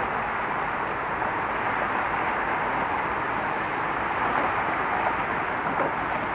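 Steady traffic noise from cars driving across a bridge: an even hiss of tyres and engines with no single vehicle standing out.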